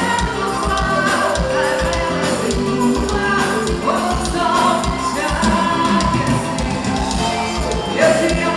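Forró band playing live: a voice singing over a steady drum beat.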